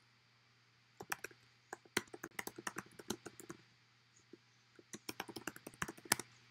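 Typing on a computer keyboard: two quick runs of keystrokes, the first starting about a second in and lasting about two and a half seconds, the second shorter, near the end.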